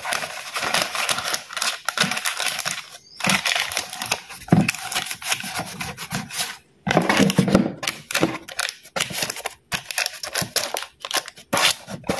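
Baking paper crinkling and rustling as it is pressed and folded by hand into a metal cake tin, in uneven spells of crackling with a few brief pauses.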